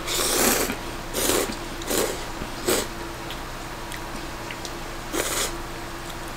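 Noodle slurping: a person sucking up instant ramen noodles with broth. One longer slurp, then three short ones about two-thirds of a second apart, and one more a little after the halfway point.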